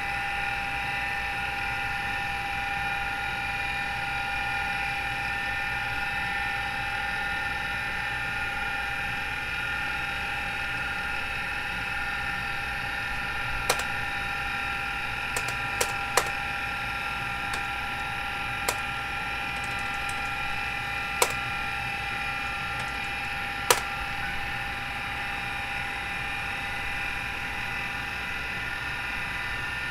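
Miniscribe 2012 MFM hard drive spinning with a steady whine of several fixed tones over a low hum, from its noisy spindle bearings. About halfway through, a scattering of sharp clicks.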